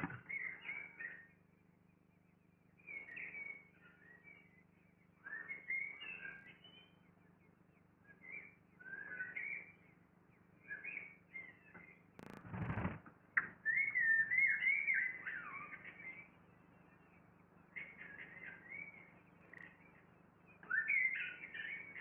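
Eurasian blackbird nestlings begging: bouts of high, thin chirping calls from the nest as the parent feeds them. A brief rustle about halfway through.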